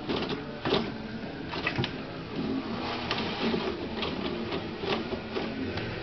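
Toilet paper roll spinning and rattling on its wall holder as a cat paws and bites at it, pulling paper off in irregular rustling tugs with sharp clicks. A low hum runs underneath.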